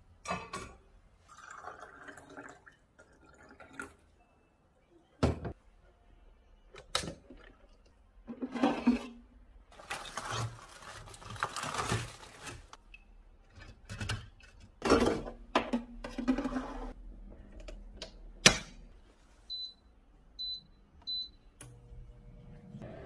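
Kitchen handling sounds: clinks and knocks of stainless-steel cups and utensils, then rustling from a plastic bag being emptied. Near the end an air fryer's touch panel beeps three times, and the air fryer starts running with a steady fan hum.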